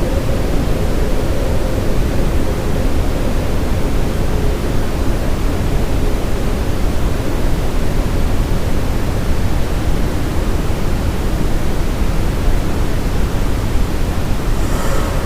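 Steady brown noise with reverb: an even, deep rushing hiss, strongest in the bass and thinning toward the treble, with no change in level.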